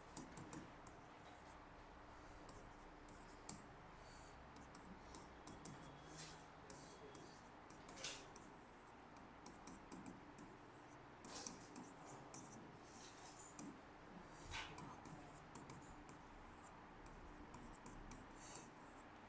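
Faint scratching of handwriting in short, irregular strokes over quiet room tone, as a determinant calculation is written out.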